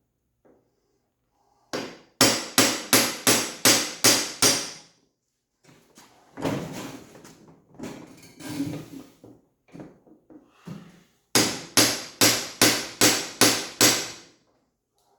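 Hammer tapping on metal, driving out stuck fittings from the top of a Jeep soft-top door's bent frame. There are two quick runs of about eight blows each, roughly three a second, with a stretch of irregular knocking and rubbing between them.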